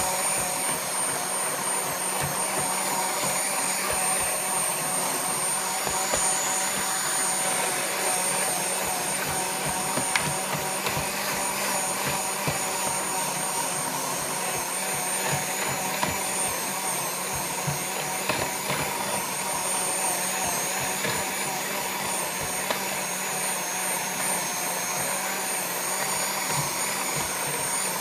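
Siemens electric hand mixer running steadily with dough hooks, kneading a stiff chocolate-chip quark dough, a steady motor whine with scattered light knocks.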